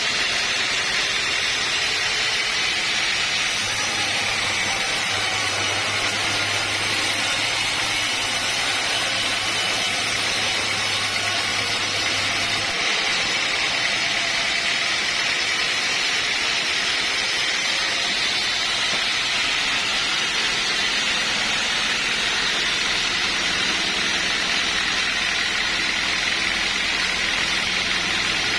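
Sawmill machinery running with a steady, even noise. A low hum joins about four seconds in and drops out about thirteen seconds in.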